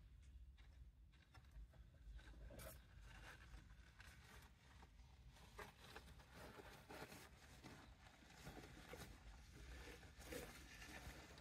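Faint, intermittent rustling of wood-shaving bedding as a golden hamster shuffles through it, over a near-silent room.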